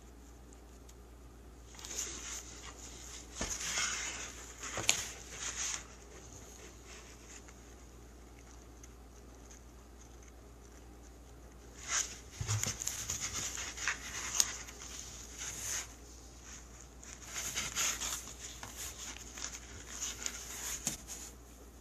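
A cat scratching and scrambling about in a cardboard box, in three bouts of scratchy rustling with sharp clicks.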